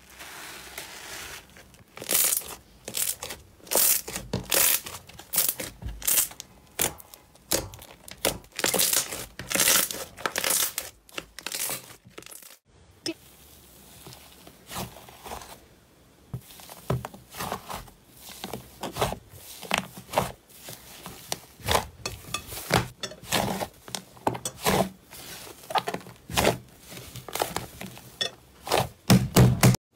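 Hands stretching, squeezing and pressing slime in a bowl, giving sharp, sticky pops and crackles at irregular intervals. The sound breaks off briefly about twelve seconds in, then goes on as a thick, fluffy slime is pressed and kneaded by hand.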